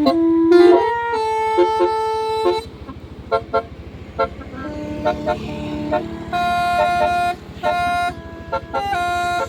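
Bus 'telolet' horn, a multi-tone air horn playing a tune of held notes and short blips at changing pitches, over the low, even rumble of the bus's diesel engine running. A long held note fills the first couple of seconds and another comes around seven seconds in.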